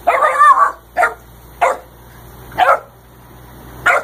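A dog barking: one longer bark at the start, then four short single barks spaced about a second apart.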